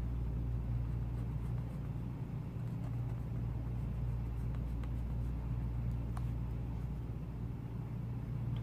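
Steady low hum or rumble, with a few faint ticks over it.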